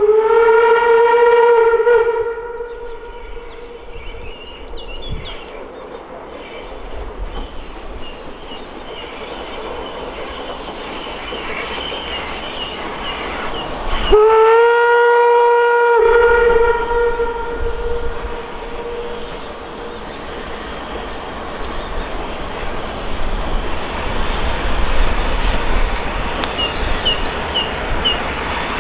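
German steam locomotive whistle blowing: one blast ends about two seconds in, and a second long blast starts about halfway, rising slightly in pitch as it opens and then fading away. Under it, the sound of the approaching steam train grows louder, and small birds chirp.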